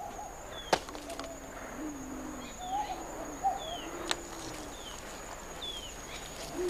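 A sharp knock about a second in, the coconut dropped by a coconut crab hitting the ground, with a fainter knock later. Doves coo repeatedly in the background, with other birds chirping and giving short falling whistles, over a faint steady high tone.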